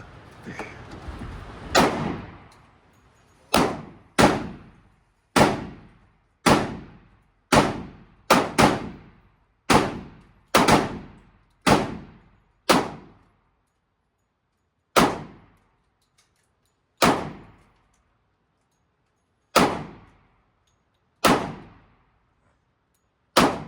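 A string of more than a dozen single pistol shots, each with a short ringing echo. The shots come quickly, every half second to a second, then slow to about one every two seconds.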